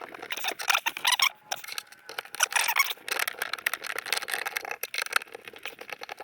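Tiny screws being driven by hand with a screwdriver into the RV's bed-platform panel: a rapid, uneven run of clicks and squeaks from the screwdriver and screw as they turn.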